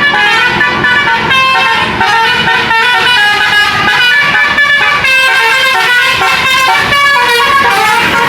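An Indonesian bus's multi-tone telolet horn playing a fast melody, several horn tones sounding at once and stepping from note to note.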